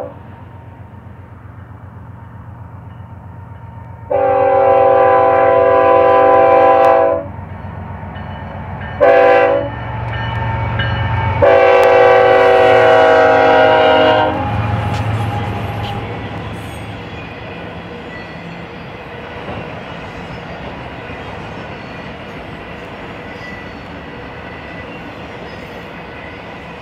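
GE ES44C4 diesel locomotive's multi-tone air horn sounding a long blast, a short one and another long one over the locomotive's rumble as it comes past. Then the steady rolling and clatter of the autorack freight cars going by.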